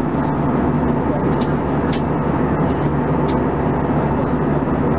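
Steady cabin drone of an Airbus A320-214 in flight at altitude: its CFM56 turbofan engines and the rush of air over the fuselage, heard inside the cabin as an even roar with a constant low hum.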